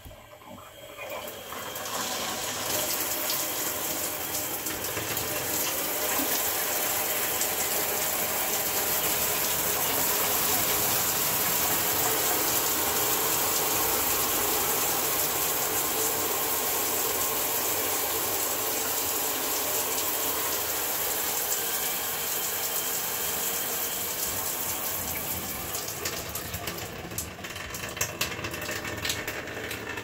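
Water spraying from an LED shower head and splashing in a fiberglass shower stall. It builds up over the first two seconds as the flow comes on, then runs as a steady hiss. A few clicks come near the end.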